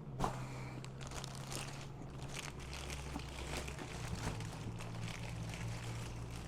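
Packaging being handled and pulled apart: a single knock right at the start, then scattered crinkling and rustling of wrapping.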